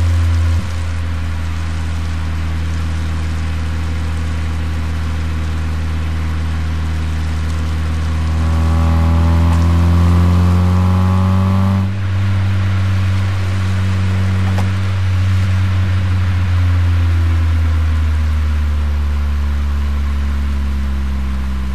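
Exhaust note of a Corsa's C20XE 2.0-litre 16-valve four-cylinder engine while driving. It runs steadily at first, then from about eight seconds in it pulls with a rising pitch for about four seconds. The throttle then lifts off abruptly, and the note settles and falls away near the end as the car slows.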